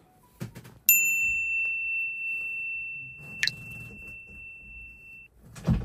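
A single bright, bell-like ding, struck once, rings high and clear and fades away over about four seconds. A short sharp click comes partway through, and low handling knocks come near the end.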